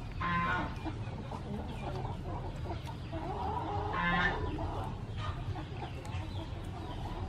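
Chickens clucking, with two short, louder calls: one just after the start and one about four seconds in.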